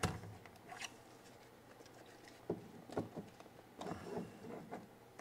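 Plastic shell of a DJI RC smart controller being pressed closed by hand, with a handful of scattered soft clicks and knocks as its clips snap back into place.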